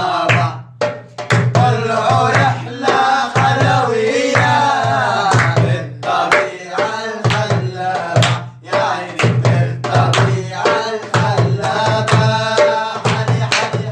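A group of scouts chanting a scout cheer together in a singing voice, over a steady drum beat of about two thumps a second.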